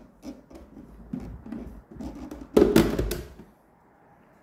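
The top lid of a WMF Lumero espresso machine being worked loose and lifted off by hand: light knocks and rubbing, then a loud cluster of sharp clicks a little past halfway as it comes free.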